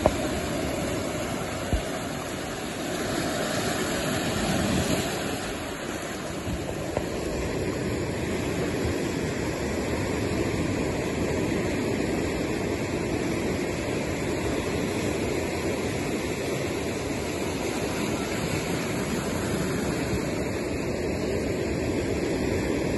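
Small waves washing onto a cobble beach: a steady rush of surf that swells a little about four to five seconds in, with a few short knocks in the first seven seconds.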